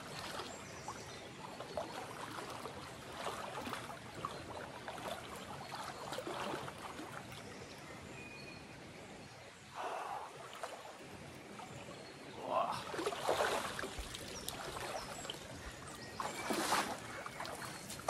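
River water flowing and sloshing as a person wades in it, with a few louder splashes in the second half.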